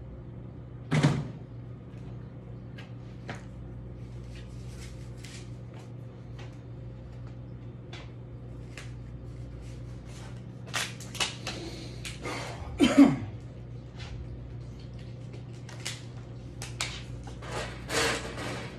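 Scattered clicks, rustles and knocks of workout gear being handled as gloves are pulled on, over a steady low electrical hum. There are two louder thumps, about a second in and past the middle, the second with a brief falling tone.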